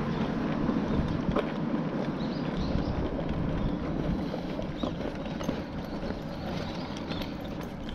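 Steady rumble of a baby stroller's wheels rolling over a paved sidewalk, with faint ticks and footsteps.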